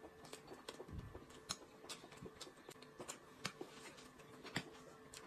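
Quiet eating at a table: scattered faint clicks and taps from handling food and a spoon in a sauce jar, with a soft thump about a second in, over a faint steady hum.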